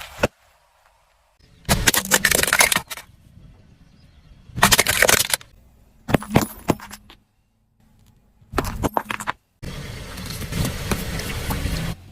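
Several short bursts of cracking and crunching, each starting and stopping abruptly, the last one longer with a low rumble under it: objects being crushed under a car's tyres.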